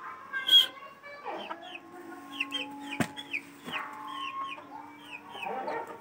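Young Aseel chickens peeping over and over, short high falling calls several a second, with a brief louder noisy burst about half a second in and a single sharp click about halfway through.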